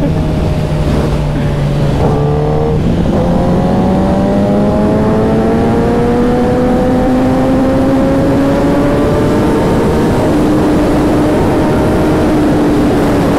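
Sport motorcycle engine pulling under acceleration with heavy wind rush. After a short break about two seconds in, its pitch climbs slowly and steadily for several seconds, then levels off near the end.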